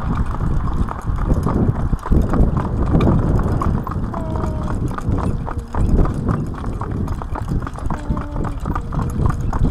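Hooves of a pair of harnessed driving horses clip-clopping on a tarmac road, a steady run of hoof strikes over a continuous low rumble.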